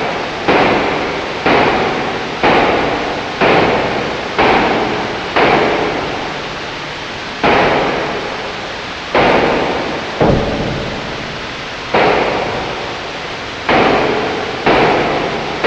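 Dark ambient music: a series of loud, reverberant hits at irregular gaps of about one to two seconds, each fading into a noisy wash.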